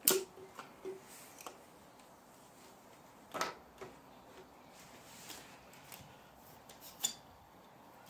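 Sharp clicks and light knocks of a metal skeleton caulking gun being handled as its plunger rod is pulled back and a new silicone cartridge is loaded, the loudest click right at the start.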